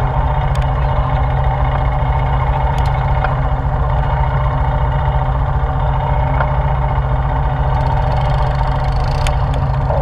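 ATV engine running steadily at low speed, heard close up, with a few faint clicks over the top.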